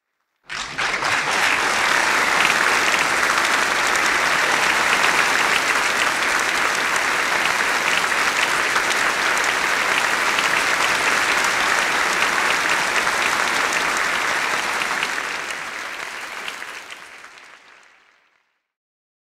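Crowd applause: dense clapping that starts about half a second in, holds steady, then fades out over the last few seconds.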